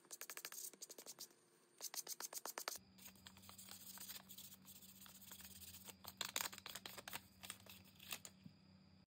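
Faint, quick scratching strokes of sandpaper rubbed along the edge of a leather wallet. The strokes are rapid and even for the first few seconds, then become more scattered. A faint low hum starts about three seconds in.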